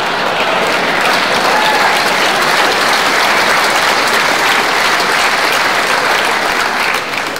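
Loud, near-continuous breathy laughter, easing briefly just before the end.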